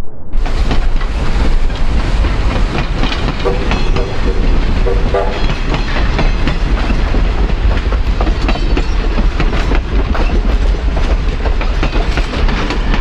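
Wheels of a passing train's tender and steel passenger coach rolling over the rails at close range: a dense clickety-clack of clicks and knocks over a deep rumble.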